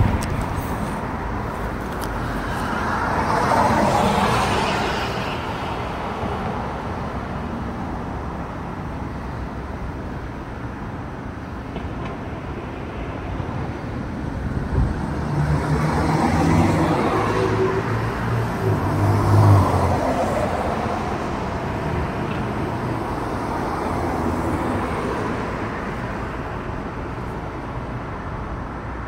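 Road traffic on a city street: a car passes about four seconds in, a louder vehicle with a low engine hum goes by from about fifteen to twenty seconds in, and another passes near the end.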